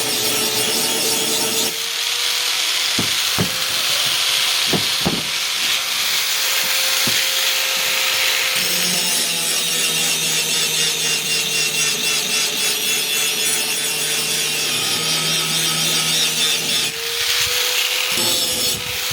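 Power grinder sharpening an axe head: a steady motor whine under a continuous harsh grinding hiss, with a few sharp clicks a few seconds in.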